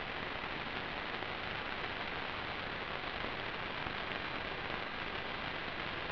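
Steady, even hiss of static from the analog FPV video link's audio channel, with no motor or voice heard.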